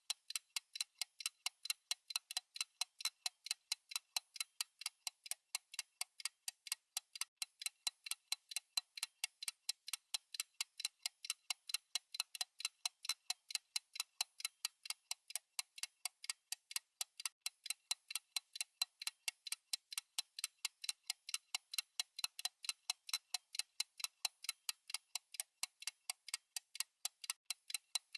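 Fast clock tick-tock from a countdown timer's ticking track: crisp, even clicks at about four a second, alternating louder and softer.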